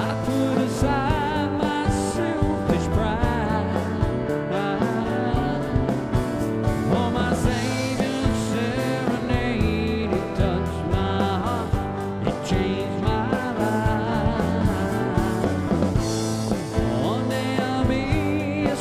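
Background music: a song with a singing voice over a band with a steady drum beat.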